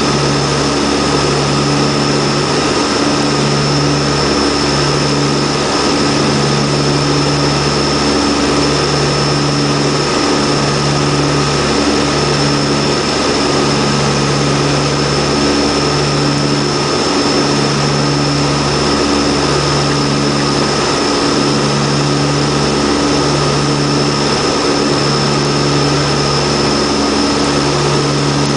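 Antonov An-32's twin Ivchenko AI-20 turboprop engines and propellers droning steadily on approach to land, heard from inside the cockpit. A steady high whine sits over a low propeller hum that throbs slowly, roughly once a second.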